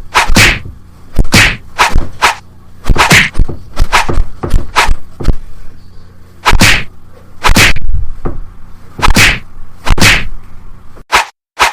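Fight-scene hit sound effects: a rapid, uneven series of about twenty loud punch and slap whacks, some coming in quick pairs.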